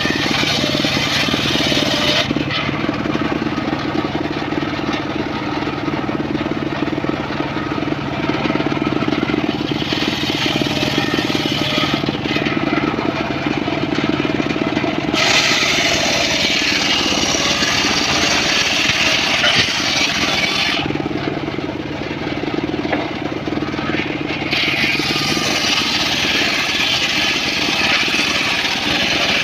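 Homemade circular sawmill (gergaji srekel) ripping teak logs into planks: the big blade runs under a constant motor drone, and a bright hiss of cutting swells for several seconds at a time as the timber is pushed through, then eases off.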